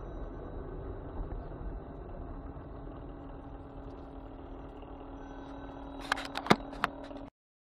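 Steady engine and road hum heard from inside a car creeping in slow traffic. A few sharp clicks come about six seconds in, then the sound cuts off suddenly.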